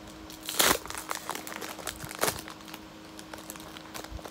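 Foil Pokémon booster-pack wrappers crinkling as they are handled, with two louder crinkles, about half a second and two seconds in.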